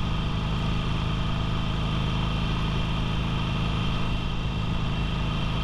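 Harley-Davidson Sportster's air-cooled V-twin engine running steadily at cruising speed, heard from the rider's seat with the rush of road and wind. The engine note holds level throughout, with no revving or gear change.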